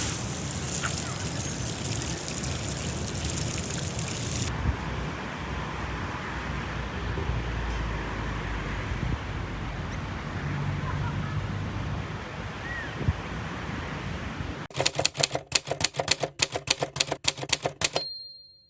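Ocean surf washing on a beach as a steady rush of noise. Near the end comes a quick run of sharp clicks, about six a second, lasting about three seconds before cutting off.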